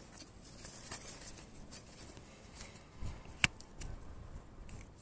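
Gloved hand working around the camshaft position sensor beside the cam belt: light rustles and small clicks, with one sharp click about three and a half seconds in.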